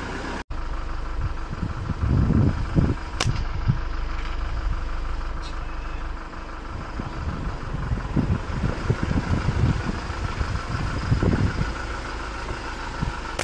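A vehicle engine running steadily, with loud low rumbles about two seconds in and again from about eight to eleven seconds in, and a single sharp click about three seconds in.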